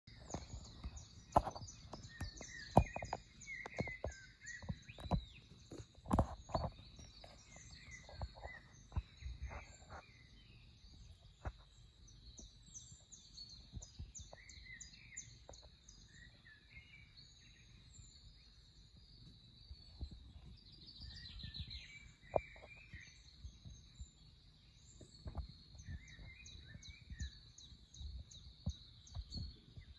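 Small birds chirping and twittering from a cat-TV bird video playing on a screen, over a steady thin high tone. Scattered sharp taps and knocks come through, loudest and most frequent in the first ten seconds.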